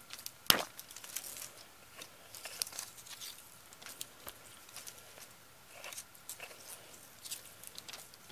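Handling noise from a VHS cassette's plastic tape reel: scattered small clicks and crinkles, with one sharper click about half a second in.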